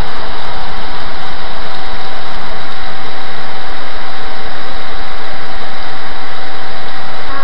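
Wind-driven heavy thunderstorm rain, a dense steady rush of noise loud enough to overload the recording.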